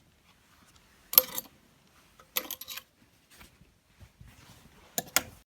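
Hard household objects handled and set down during cleaning: three bursts of sharp clinks and clatter, the first the loudest, with a light ringing like dishes or metal, and soft handling noise between them.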